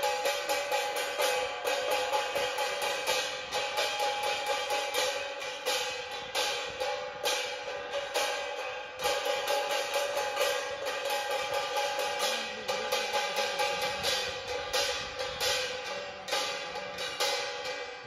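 Devotional aarti music: hand cymbals and bells struck in a fast, even beat with drumming, over steady held tones.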